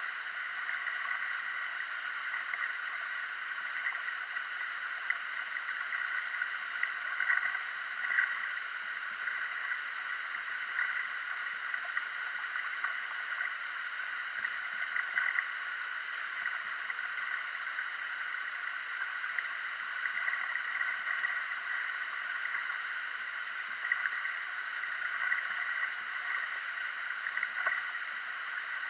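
Steady rush of flowing river water, briefly louder now and then.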